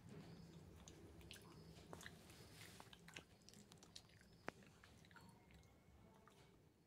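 Shih Tzu puppy chewing a chew stick: quiet, irregular clicks and crunches of teeth gnawing the stick, with one sharper click about four and a half seconds in, thinning out near the end.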